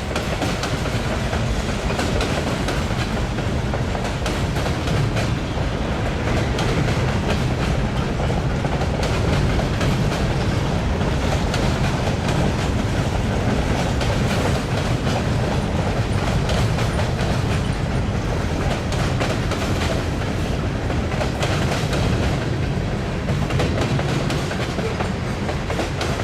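Freight cars of a passing mixed freight train, mostly covered hoppers, rolling by at steady speed with a continuous rumble and the rapid clicking of wheels on the track.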